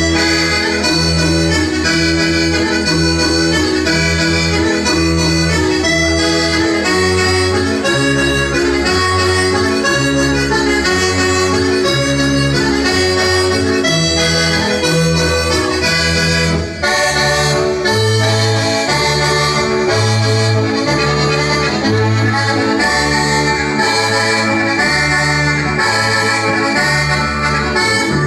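Sardinian organetto, a diatonic button accordion, playing a dance tune: a quick, busy melody over bass and chord notes that alternate in a steady dance rhythm, with a momentary break about 17 seconds in.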